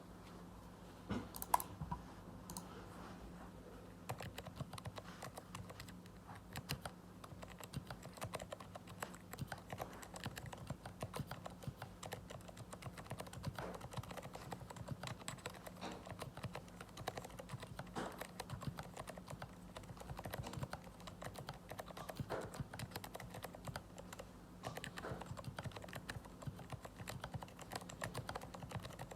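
Typing on an Idobao ID67 mechanical keyboard with unlubricated Kailh Box Silent Brown switches and PBT XDA keycaps. A few separate key presses come first, then a continuous run of fast typing from about four seconds in.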